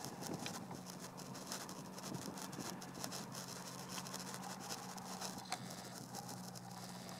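Beechcraft V-tail Bonanza's flat-six piston engine and propeller giving a steady low drone as the plane descends and flares just above the runway. Scattered crackling clicks run over it, with a sharper click about five seconds in.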